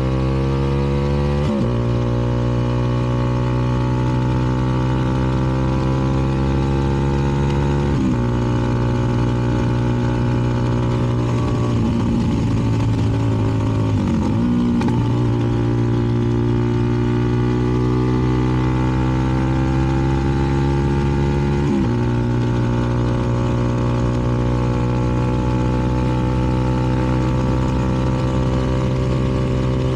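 CFMoto 300NK's single-cylinder engine through an aftermarket KO exhaust, pulling hard through the gears. The pitch climbs steadily and drops sharply at each of four upshifts.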